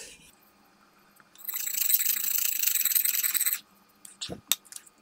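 Steel knife blade drawn along a brick in one long sharpening stroke: a steady scraping hiss with a thin metallic ring, lasting about two seconds, followed by two light clicks.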